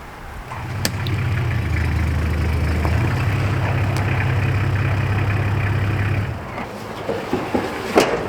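Vehicle engine running steadily at a low idle-like hum, which cuts off about six seconds in. A sharp knock follows near the end.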